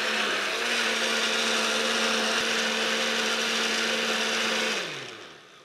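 Countertop blender with a glass jar running steadily at speed, blending a thick cream-cheese and gelatin cheesecake filling. Near the end it is switched off and the motor winds down, its pitch falling as it fades.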